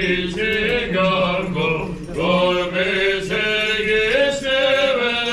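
Male liturgical chanting: long held notes that step up and down in pitch over a steady low held note.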